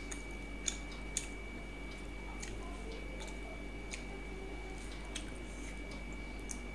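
Fingers clicking and scraping lightly on a stainless steel plate while rice and fish are picked up and eaten by hand, with quiet chewing. About half a dozen scattered clicks; the sharpest two come within the first second and a half.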